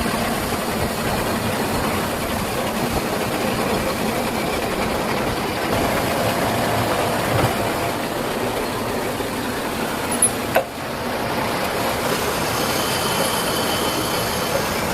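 Metal lathe and workshop machinery running steadily with a dense, even mechanical noise, broken by one sharp click about ten and a half seconds in.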